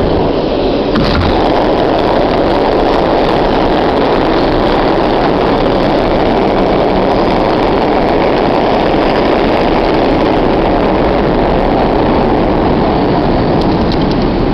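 New York City subway train running at speed through a tunnel: a loud, steady rumble that gets louder and brighter about a second in.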